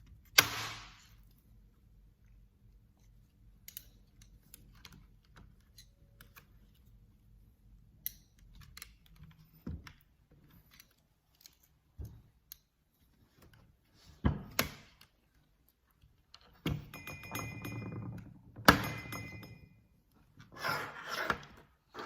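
Case of a Mathew Tech MK86 gasket-mount keyboard kit being pried apart by hand: scattered sharp clicks and knocks, with stretches of rubbing and brief squeaks in the last third as the case halves are worked loose.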